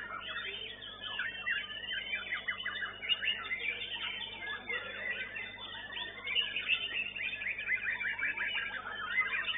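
White-rumped shama (murai batu) song in competition: a fast, unbroken stream of quick whistled notes, trills and chatter, with a rapid run of repeated notes about seven seconds in.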